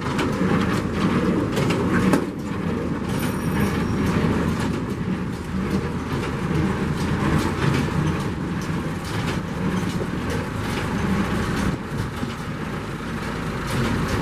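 New Holland 376 baler running stationary, its mechanism clattering steadily with repeated knocks over a constant machine drone.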